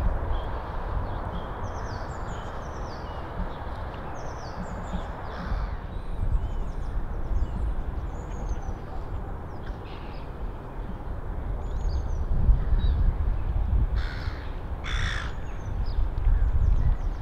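Birds calling: many short, high, falling chirps throughout, and two loud, harsh caw-like calls about 14 and 15 seconds in, over a steady low rumble.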